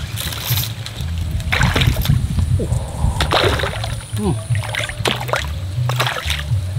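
A hooked fish thrashing at the water surface: a series of irregular splashes and sloshes as it fights the line. Wind rumble on the microphone runs underneath.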